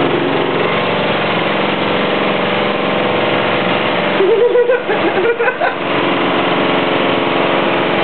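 Front-loading washing machine running with a steady motor hum. A person's voice is heard briefly about halfway through.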